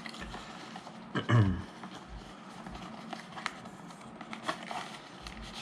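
Small clicks and taps of items and packaging being handled during an unboxing, with a short vocal sound about a second in and a faint steady hum underneath.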